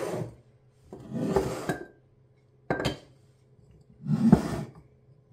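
Bamboo lids of white ceramic kitchen canisters being lifted off and set back on, rubbing and clinking against the jars. There are several separate handlings: a longer scrape about a second in, a sharp click near three seconds, and another scrape near the end.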